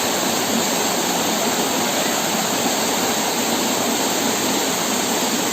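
Waterfall rushing steadily, a constant noise of falling water with no breaks.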